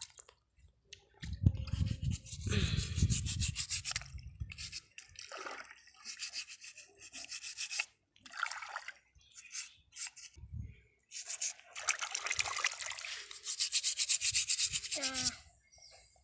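A stiff brush scrubbing tuway clam shells in quick back-and-forth strokes to scour the mud off them, in several bouts with short pauses between. Heavier thumps of the shells being handled come in the first few seconds.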